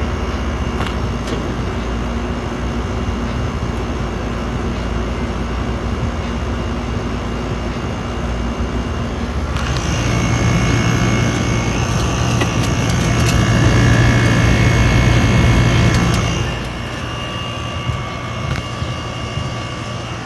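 Two window air conditioners running, a steady fan and compressor drone. From about ten seconds in, for some six seconds, it grows louder with a strong low hum and a thin whine, then drops back.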